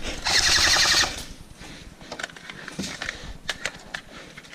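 Airsoft rifle firing a rapid full-auto burst of about a second, then scattered single pops and snaps of other airsoft guns.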